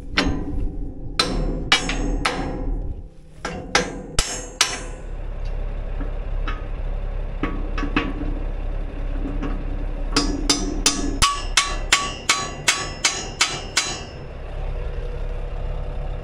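Hammer blows on the steel of a tillage plow's frame as a welded-up part is refitted. A few scattered strikes come first, then a quick run of about a dozen, roughly three a second, in the second half.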